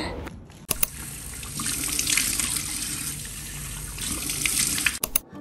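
Bathroom sink faucet running, its stream splashing onto cupped hands and into the basin. It starts abruptly about a second in and cuts off just before the end.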